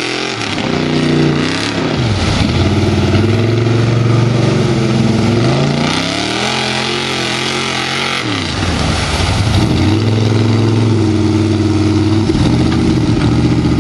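Chevy mud truck's engine revving hard while it drives through deep mud on 44-inch Bogger tires. The revs drop sharply and climb again three times: near the start, about two seconds in, and about eight seconds in.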